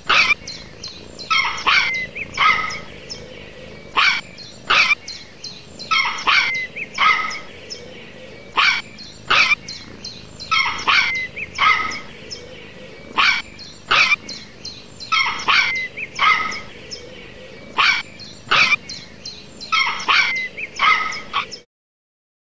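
A dog barking in short bursts. The same string of barks repeats about every four and a half seconds as a loop, then cuts off suddenly near the end.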